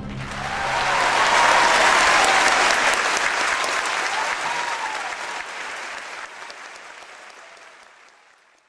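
Audience applause, swelling for about two seconds and then fading out gradually until it dies away near the end.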